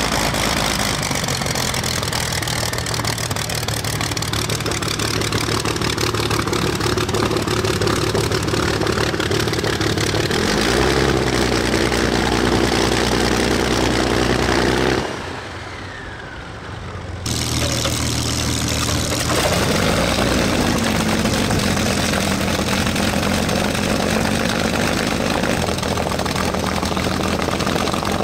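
Messerschmitt Bf 109's piston V12 engine running steadily at low taxiing power. About halfway through, the sound turns quieter and duller for about two seconds, then returns at full level.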